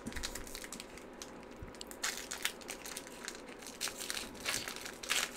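Foil wrapper of a Pokémon booster pack crinkling as it is pulled open by hand: soft, irregular crackles that get busier about halfway through.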